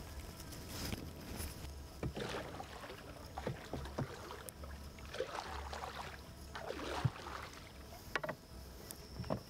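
Wooden paddle pushing through the water beside a small wooden boat: four or five swishing strokes about a second apart, with a few sharp knocks between them.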